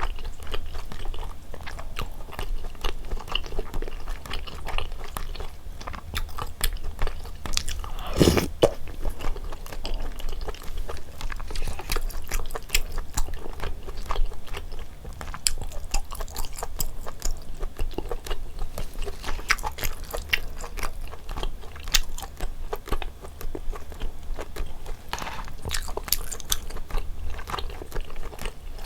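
A person chewing and biting into rosé jjimdak (braised chicken in rosé sauce) with Chinese glass noodles, close to the microphone: a steady run of small wet clicks and smacks, with one louder bump about eight seconds in, over a low steady hum.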